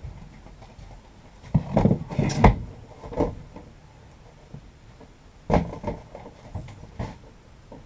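A thin sheet of white board knocking and bumping against the van's wall as it is pushed into place for a test fit: a run of thumps with the loudest about two and a half seconds in, a single knock about a second later, and another bump a little past five seconds.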